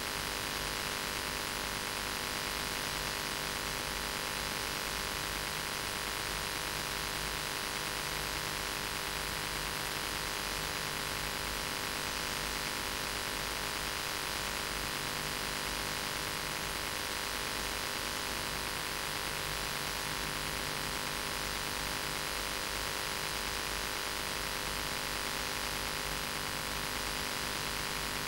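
Steady hiss with a constant electrical hum made of many steady tones, no speech audible: the noise floor of an old video recording whose speech track is missing.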